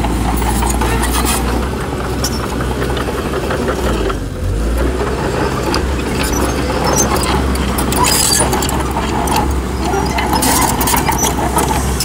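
Komatsu D31PX crawler bulldozer's diesel engine running with a steady low drone, with frequent clicks and clanks from the working machine. The engine note dips briefly about four seconds in.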